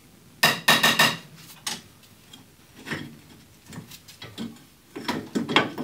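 Hand wrench loosening control-arm and suspension bolts on a car's front suspension: a quick run of sharp metallic clicks about half a second in, then scattered clicks and knocks of the tool on the bolts.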